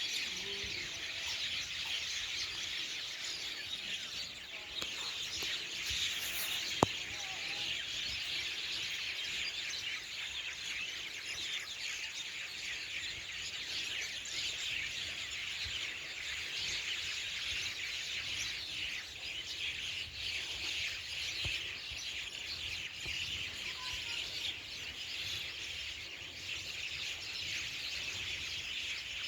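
Dense evening chorus of many forest birds chirping and calling together in a continuous, unbroken wash of high chirps, with one sharp click about seven seconds in.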